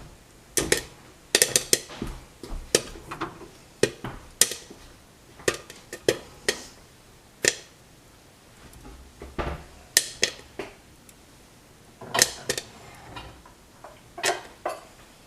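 Popcorn kernels popping in a pan on a hob: sharp, irregular pops, at times several close together, with a short lull near the middle.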